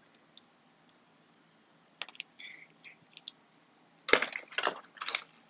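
Small hard plastic items, such as nail-product bottles and packaging, clicking and rattling as they are handled. There are a few scattered clicks at first, then a dense run of louder clicks in the last second and a half.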